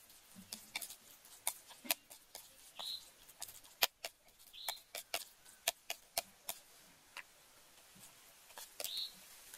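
Metal spoon clinking and scraping against a ceramic plate while stirring a wet minced snail-and-pork filling: irregular sharp clicks and taps, with a few short high squeaks among them.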